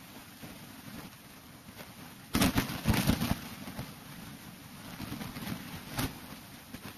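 Steady rush of a small waterfall and stirred water in a canyon pool. A burst of sharp knocks and clatter comes about two and a half seconds in, and a single sharp click comes near the end.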